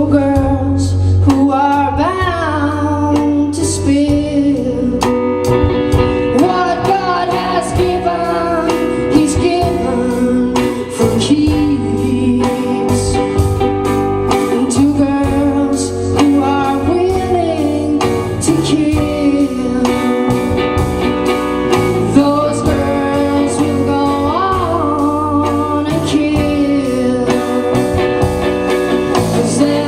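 Live band playing a song: a woman singing over guitar, bass guitar and drum kit.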